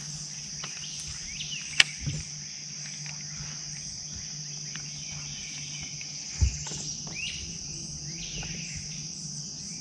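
Steady high-pitched drone of a summer insect chorus over a low steady hum, with a sharp click about two seconds in and a dull thump about six and a half seconds in.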